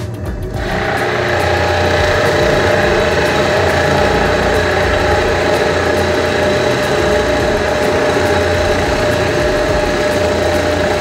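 Bench drill press running and boring a concealed-hinge cup hole into a cabinet door: a steady motor hum with the bit cutting wood. It starts about half a second in.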